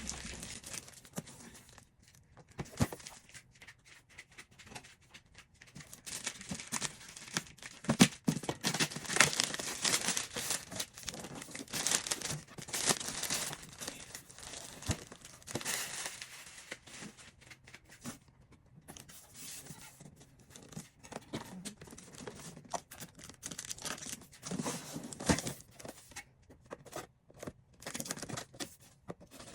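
Packaging being torn open and crumpled by hand: irregular tearing and crinkling with scattered sharp clicks, busiest in the middle stretch and again near the end.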